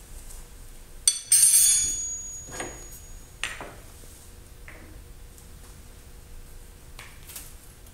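Steel lathe tooling being handled: a sharp click, then a loud ringing metallic clink about a second in, followed by a few softer clunks as a quick-change tool holder is taken off the toolpost and another tool fetched.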